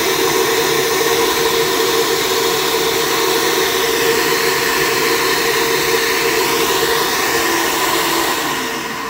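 Flow bench's vacuum motors running steadily, pulling air through a ported LS1 cylinder head's intake port at about 314 CFM. Near the end the motors are switched off and spin down with a falling whine.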